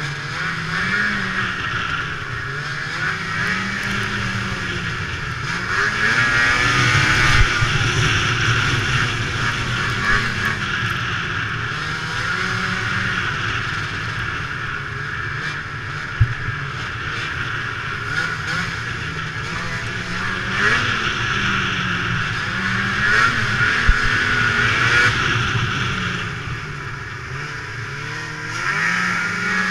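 Ski-Doo MXZ two-stroke snowmobile engine running under way, its pitch rising and falling again and again as the throttle is worked along the trail. A few sharp knocks stand out.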